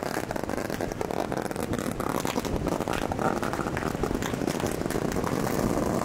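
Ocean surf washing in, with water splashing around the legs of people wading through it: a steady rushing and crackling noise.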